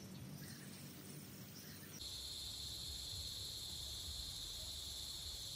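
Faint outdoor ambience. About two seconds in, a steady high-pitched drone of insects comes in abruptly and holds on.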